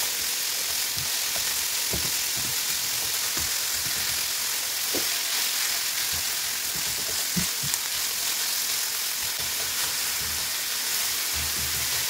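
Minced meat and chopped onion sizzling steadily in a non-stick frying pan while a silicone spatula stirs and breaks up the meat, with soft scrapes and taps of the spatula on the pan now and then.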